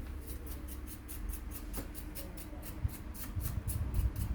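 Quick, rhythmic rubbing strokes, about four to five a second, as a laptop is cleaned by hand, with low handling bumps underneath.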